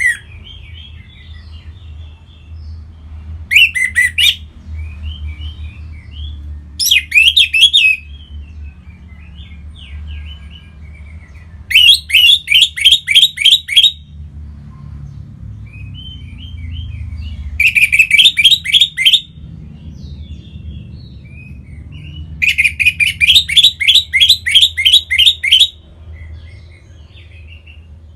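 Orange-headed thrush singing: five loud phrases of rapid, repeated down-slurred whistled notes a few seconds apart, with soft twittering between them. A steady low hum runs underneath.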